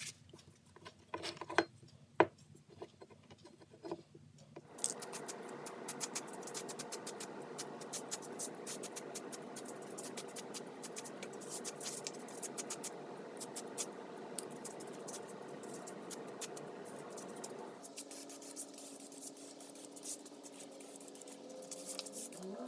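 Scratching and rubbing on the vise's metal base plate as it is prepared for priming and paint, a steady rasping run full of rapid clicks from about five seconds in until near the end, over a faint steady hum. A motor's pitch rises at the very end.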